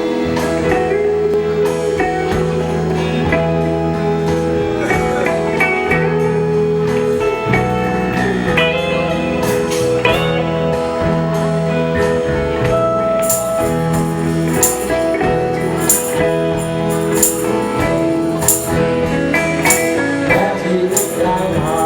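Instrumental band music led by guitar over a steady bass line; about 13 seconds in, an even high percussion beat joins.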